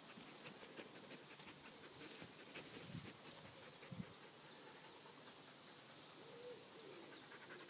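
Faint outdoor sounds: scattered rustling and two soft knocks, then a small bird chirping repeatedly through the second half, with low hooting calls near the end.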